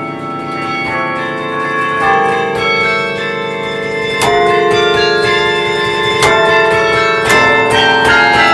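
Carillon played by hand from its baton keyboard: a tune of struck bell notes, each ringing on and overlapping the next, several at once in places. It grows louder from about four seconds in.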